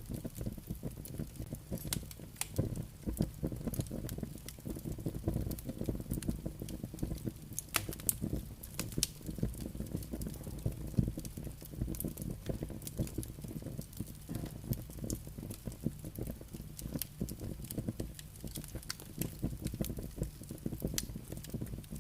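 Campfire burning, with frequent irregular crackles and pops over a steady low rumble.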